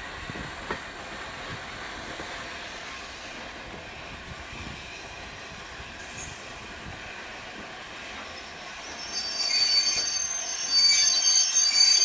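Railway passenger coach rolling slowly on the track, heard from an open coach window, with a steady rumble. About nine seconds in, a loud high-pitched brake and wheel squeal starts as the train draws to a stop at the station.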